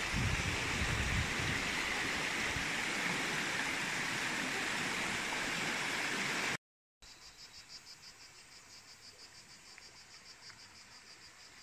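Fast-flowing spring-fed stream rushing steadily, with a low rumble at the start. After an abrupt cut, the water falls away to a quiet background of insects chirring in a fast, even pulse.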